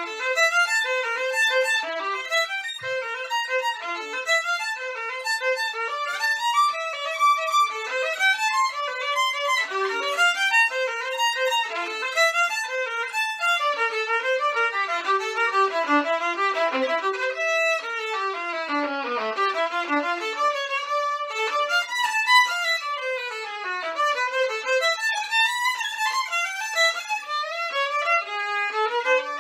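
Solo violin playing a fast passage with quick runs of notes sweeping up and down, with no accompaniment.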